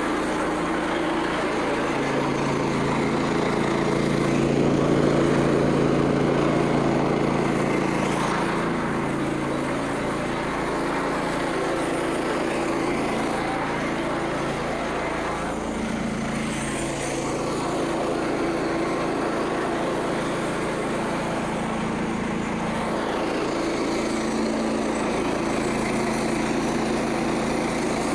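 Small gasoline engine of a Frontier OS27 portable bandsaw sawmill running steadily, a little louder about four to seven seconds in.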